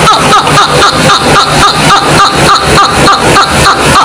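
Loud, rapid, high-pitched laughter in quick repeated pulses, about five a second.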